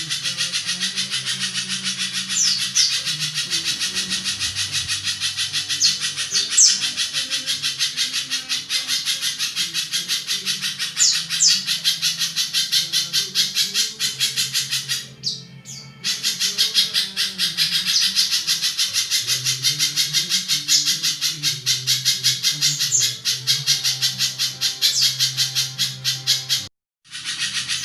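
Spiderhunter (pijantung) giving its long, harsh chattering call: a rapid run of rough notes many times a second, with occasional sharper higher notes. It breaks off briefly about halfway and again just before the end.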